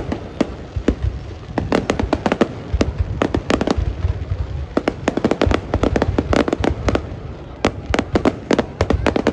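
Fireworks going off in quick succession: many sharp bangs, several a second and often in clusters, over a continuous low rumble.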